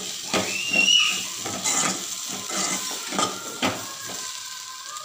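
A steel spoon clinking and scraping against a metal cooker pan, again and again, as shallots, tomato and dried red chillies are stirred while they fry in oil.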